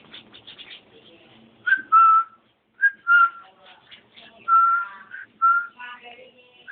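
A person whistling a string of short notes at about the same pitch, some starting with a quick upward slide, with softer clicks and scuffles in the first second.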